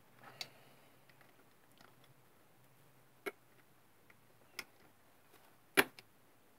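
Scattered sharp metallic clicks and taps from a socket wrench on an extension bar being worked on the crankcase nuts of a British Seagull outboard: about four distinct clicks spread out, the loudest near the end.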